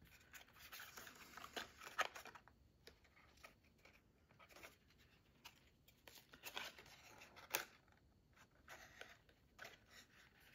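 Faint rustling and light clicks of cardstock as a paper pop-up card is handled, opened and closed, with a few sharper paper snaps about two seconds in and again around six to eight seconds in.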